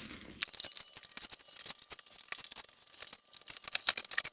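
Packaging for boxed running boards being opened and handled: a dense run of crackles, clicks and tearing.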